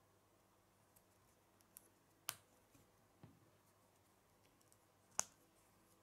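Small Lego plastic pieces being snapped together by hand: two sharp clicks about three seconds apart, with a few faint ticks of handling between them.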